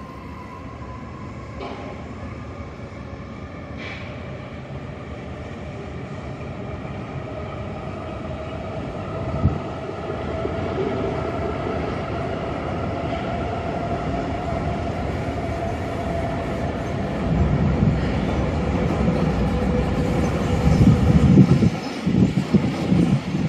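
Trains running over steel truss railway bridges: a red S-Bahn electric train's rolling hum builds steadily, then a freight train hauled by an electric locomotive passes. Its wagons' wheels give a heavy low rumble with repeated knocks that grows loudest near the end.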